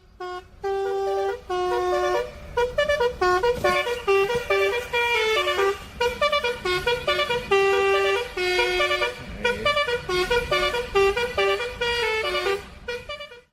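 Indonesian 'telolet' multi-tone bus horn (basuri) playing a quick melody of short horn notes, rising and falling in pitch.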